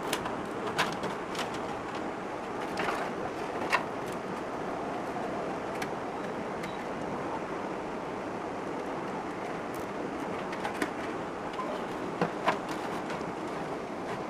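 Scattered light clicks and taps of PC cables being handled and routed inside a desktop computer cabinet, over a steady background hiss. The clicks come in a cluster in the first few seconds and again near the end.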